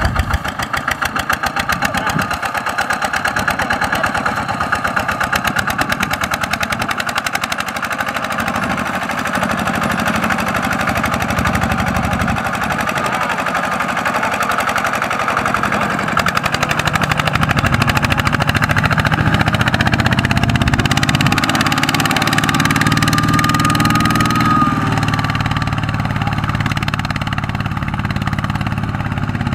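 Single-cylinder diesel engine of a Kubota RT120 walk-behind tractor running hard with a rapid, steady chug while it pulls a loaded rice trailer out of sticky mud. Its note rises and gets louder a little past halfway, then eases off several seconds before the end.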